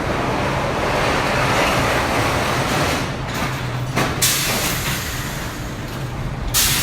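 Tig'rr roller coaster train running on its steel track. Its brakes grab near the end with a loud hiss, the sound that gives the ride away.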